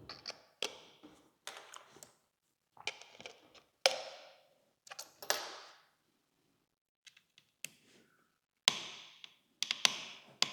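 Small sharp clicks and short scraping rattles from a precision screwdriver and tiny screws being worked out of a Sony A7R IV camera body, coming irregularly with a pause midway.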